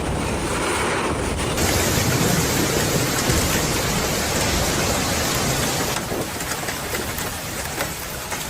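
Heavy rain beating down in a storm, a dense steady hiss, with the sound changing abruptly about a second and a half in and again about six seconds in as one stretch of storm audio gives way to another.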